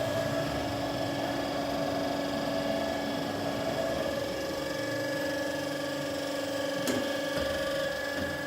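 Berg & Schmid GBS 305 VAI CNC automatic metal band saw running with a steady mechanical hum made of several constant tones, with a single short click about seven seconds in.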